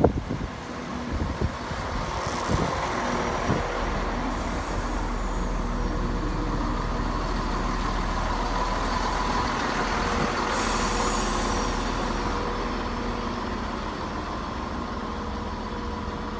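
A train passing along the line: a steady rumble with a held engine tone, building to its loudest about ten seconds in and easing off near the end.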